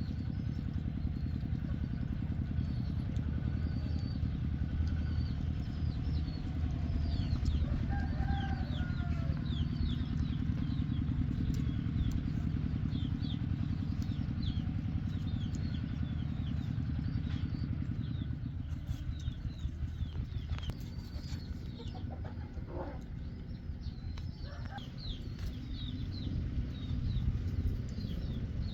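Outdoor ambience: small birds chirping over and over above a steady low hum, with a few lower, hen-like clucking calls near the start and again past the middle.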